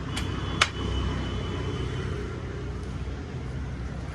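Steady low rumble of background noise with two sharp clicks in the first second, the second one louder.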